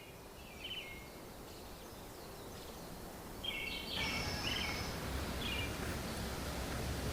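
Birds chirping in short repeated calls over a steady outdoor hiss, which grows louder about four seconds in.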